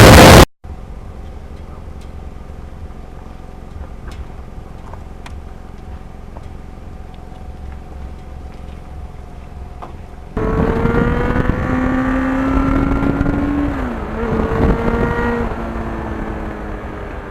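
Motorcycle engine under way. A loud roar of wind on the microphone cuts off half a second in, leaving a steady, quieter cruising hum. About ten seconds in the engine grows louder as the revs climb, dip suddenly at a gear change, and climb again before easing.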